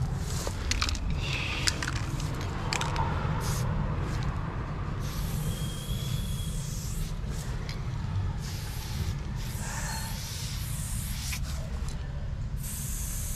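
Graffiti paint being sprayed: separate stretches of spray hiss, a longer one about five seconds in and another starting near the end, with a few short sharp sounds earlier on, over a steady low rumble.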